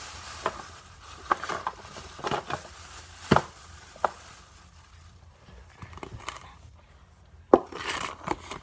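Small objects being handled and put down: scattered knocks and clicks with some crinkling, the sharpest knocks about three seconds in and again near the end.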